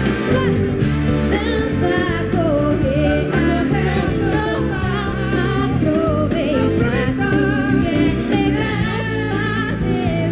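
Live pop band music with a woman singing lead, her voice wavering over a steady bass and band backing.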